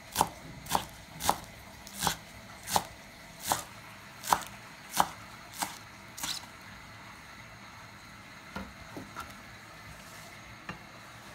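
Kitchen knife chopping scallions on a bamboo cutting board: about ten sharp chops, roughly one every three-quarters of a second, stopping a little after six seconds in. A few faint knocks follow later.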